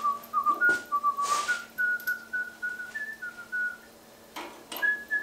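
A man whistling a short tune, single clear notes stepping up and down, breaking off about four seconds in and picking up again near the end. A few light clicks from small parts being handled come in between.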